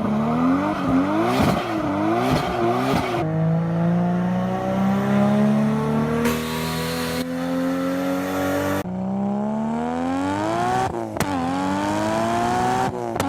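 Single-turbo RB26 Nissan Skyline GT-R engine on an HKS GTIII-series turbo kit, revved in several quick throttle blips, then accelerating hard with the pitch climbing steadily. The pitch drops at gear changes about nine and eleven seconds in, and again just before the end.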